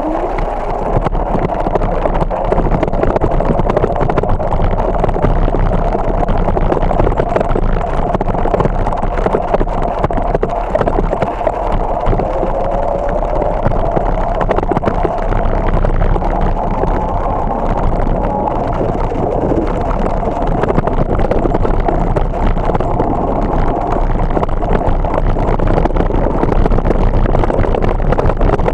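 Steady rumble of a bicycle rolling over gravel and packed dirt, tyre noise mixed with wind on the microphone.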